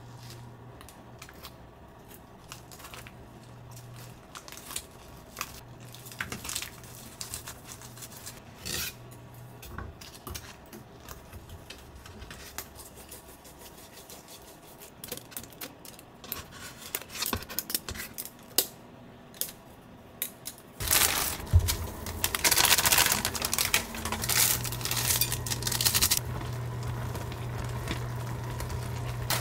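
Small clicks and taps of a bamboo gimbap mat and utensils as a filled laver sheet is rolled and pressed tight. About two-thirds of the way through, this gives way to a louder crackling, bubbling sound of instant noodles cooking in a shallow pan of water, stirred with wooden chopsticks.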